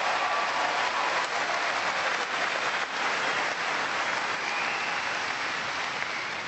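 Arena crowd applauding a tennis champion's trophy presentation, dense clapping that begins to die down near the end.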